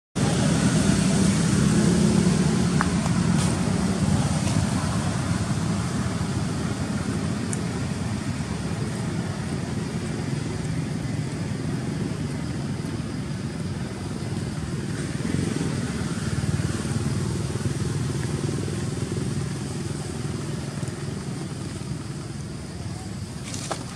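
Steady low rumble of motor traffic in the background, swelling and fading slowly.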